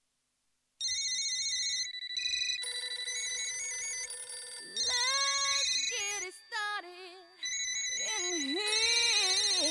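Electronic telephone ringer warbling in repeated bursts, starting about a second in. From about halfway, sliding, wavering pitched tones play over it.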